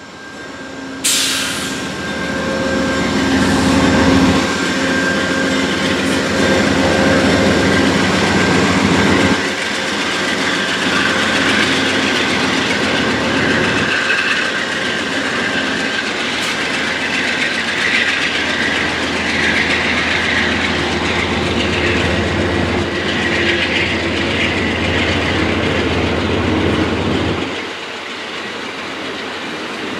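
An Amtrak GE P42DC Genesis diesel locomotive departing, its engine droning as it passes, with a sharp burst of noise about a second in. Passenger cars follow, rolling by with a steady rumble and wheels clicking over the rail joints, and the sound drops off near the end.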